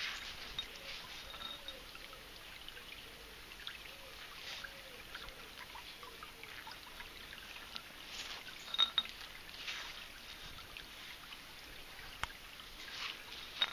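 Shallow stream trickling over rocks, with scattered light clicks and a few brief glassy clinks from a codd bottle being handled, the loudest cluster a little past halfway.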